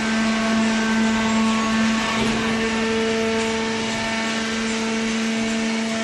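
Hydraulic waste-paper baler's power unit running: a steady electric-motor and pump hum with a higher whine on top, over a steady machine hiss.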